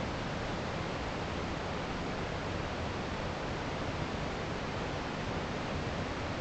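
Steady, even rushing noise with no distinct sounds or changes in it.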